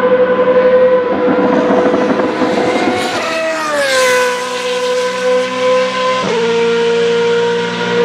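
Naturally aspirated V8 formula race car engines holding a steady high note. One car passes close about three and a half seconds in, its pitch gliding down as it goes by. The pitch steps down slightly about six seconds in.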